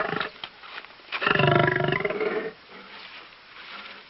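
Lion roaring: one long roar about a second in, after the end of an earlier roar.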